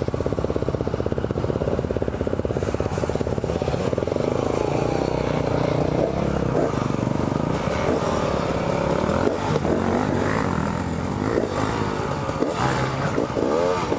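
Suzuki DR-Z400 single-cylinder dirt bike engine chugging at an even low pace, then revving up and down unevenly from about five seconds in, with some clatter.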